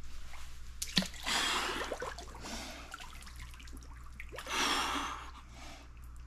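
Water sloshing and dripping as a person steps into an ice-water plunge tub and sits down in it. Two long, heavy breaths come about a second in and about four and a half seconds in, the breathing of a body entering 42°F water.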